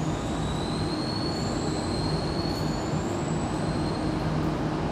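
Sydney Trains double-deck electric train running slowly into an underground platform: a steady rumble and hum, with thin high squealing tones drifting slightly upward above it.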